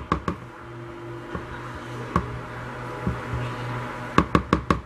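A spatula knocking against the side of a plastic mixing bowl while stirring thickening cold process soap batter: a few scattered knocks, then a quick run of about six near the end. A low steady hum runs underneath.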